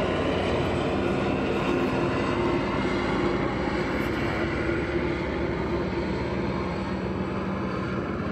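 A steady engine-like drone with a low hum, slowly getting quieter.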